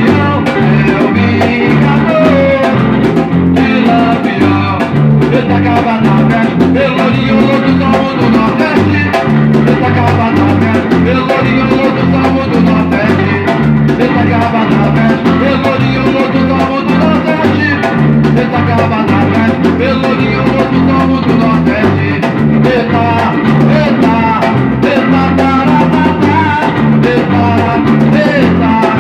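Band playing samba-reggae: guitar over bass and drums at a steady, even loudness, with some singing.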